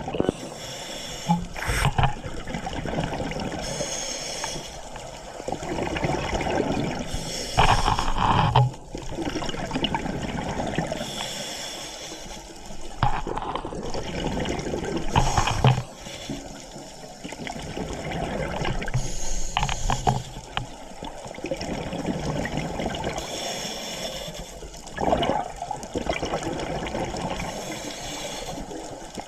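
Scuba diver's regulator breathing underwater: a loud burst of exhaled bubbles gurgling past the camera every five or six seconds, over a steady watery hiss.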